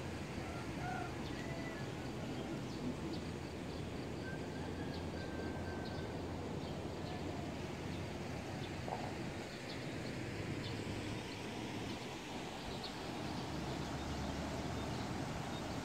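Steady outdoor background noise with faint, scattered bird chirps and small high ticks throughout.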